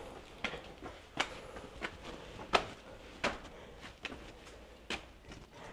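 Footsteps in a cave passage: about eight sharp, short steps at an uneven walking pace, roughly one every two-thirds of a second.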